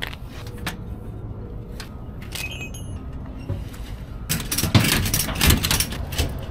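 A steady low rumble with a brief high squeak about two and a half seconds in, then a quick run of clanks and rattles a little after four seconds.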